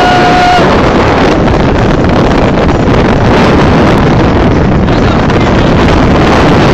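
Loud, steady wind rush buffeting the phone's microphone inside a car moving at speed, mixed with road noise.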